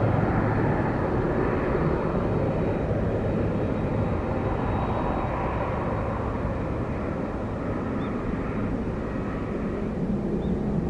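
Jet airliner engines running, a steady rush of noise over a low hum that eases off slightly through the middle.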